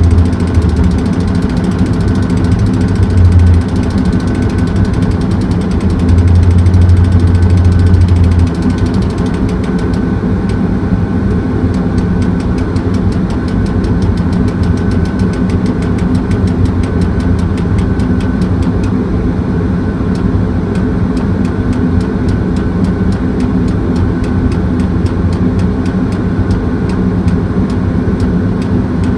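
Heavy diesel engine running steadily with a deep hum. Its low rumble swells louder for the first few seconds and again from about six to eight seconds in, then settles to an even run with a faint fast ticking.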